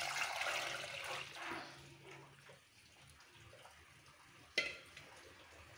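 Thin besan batter poured from a steel bowl into a pan of hot fried onions, splashing for about two seconds before it tails off. Then a steel ladle stirs the batter, with one sharp knock against the pan about four and a half seconds in.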